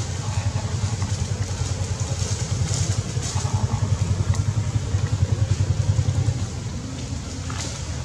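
A motorcycle engine running nearby, with a fast low pulsing hum that grows louder for a few seconds and then falls away about six and a half seconds in.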